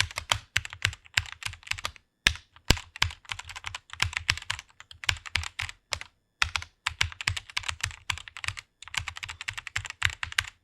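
Computer keyboard being typed on rapidly: fast runs of key clicks broken by brief pauses, as a verse is typed out.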